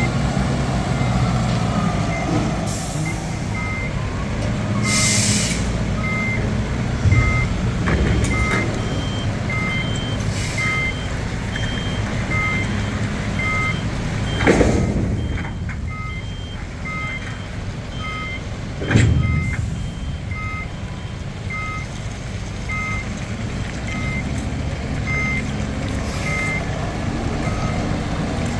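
Nippon Sharyo DH408-95M pile driver's diesel engine running, with its warning alarm beeping about once a second. Two short hisses come in the first few seconds, and three sharp knocks are spread through.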